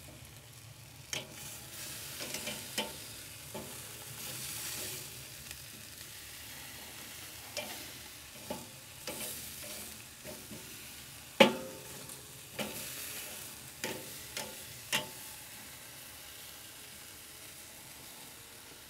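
Pork neck steaks sizzling on the grate of a charcoal kettle grill while metal tongs lift and set them down. A steady faint sizzle is broken by sharp clicks and clacks of the tongs against the grate, the loudest about eleven seconds in.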